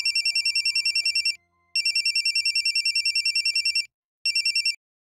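Phone ringtone with a fast electronic trill: two rings of about two seconds each, then a short third ring that is cut off partway.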